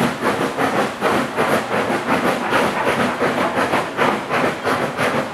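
Steam locomotives working hard on a heavy freight train, their exhaust beats coming as a fast, even chuffing of about four beats a second over a steady hiss of steam.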